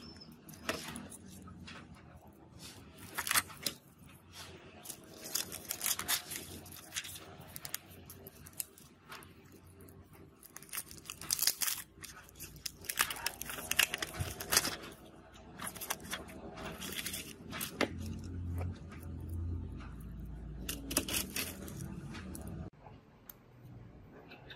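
Thin protective plastic film being peeled off a glass phone panel: crackling, tearing rasps that come in irregular bursts, with handling of the sheets in between.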